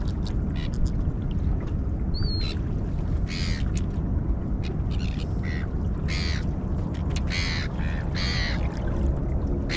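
Steady low rumble, with several short rasping hisses and a brief high chirp about two seconds in.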